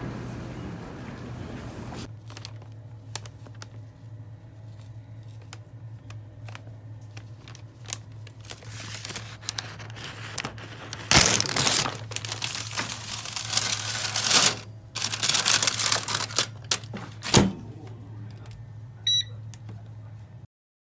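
Paper crinkling and tearing in loud rustling bursts through the second half, with a sharp click and then a short electronic beep near the end, over a steady low hum.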